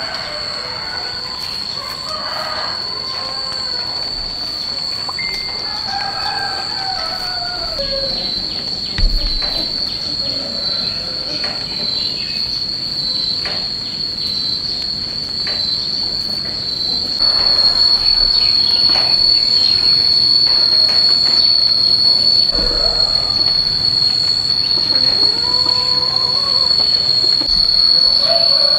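Insects giving a continuous high-pitched drone that grows louder about seventeen seconds in. Scattered short chirping calls and a single thump about nine seconds in are heard over it.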